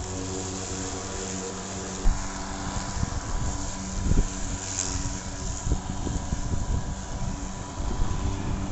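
Ryobi 36V brushless cordless lawn mower running at a steady hum while being pushed over the grass cutting it, with irregular low thumps and rumble from about two seconds in.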